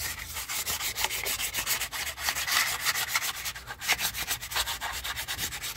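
Emery paper rubbed by hand in quick repeated strokes over the oily mounting face of a Toyota Land Cruiser 90-series differential housing. This cleans the face so the new diff lock actuator will seal.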